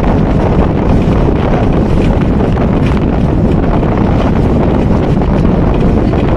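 Steady wind buffeting the microphone at the open window of a moving bus, over the low rumble of the bus and the road.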